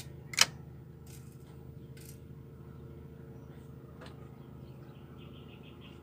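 A single sharp snip about half a second in, scissors cutting nylon fishing line, followed by a few faint handling clicks over a steady low hum. Near the end comes a quick run of faint chirps.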